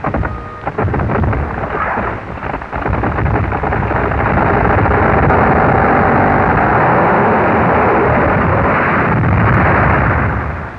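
A giant kauri pine crashing down as it is felled: a rough, crackling noise that swells about four seconds in into a long, loud, steady crash, easing off near the end.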